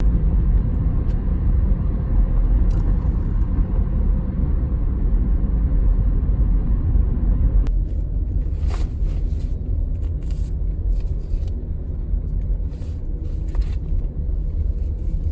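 Steady low rumble of a moving vehicle. It shifts slightly about eight seconds in, after which a few light clicks and taps sit over it.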